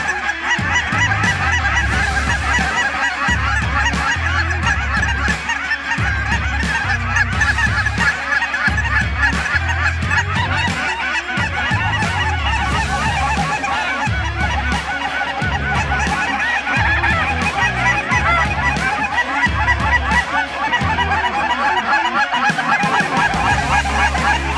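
A large flock of cackling geese calling without pause: a dense chorus of many overlapping high, short calls. A low rumble comes and goes underneath.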